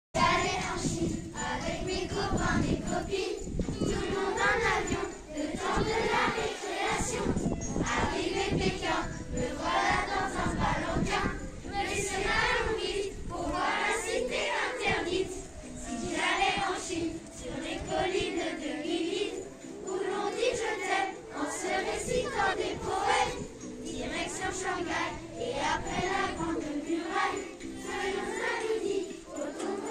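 A group of children singing a song together, with jingle bells ringing along.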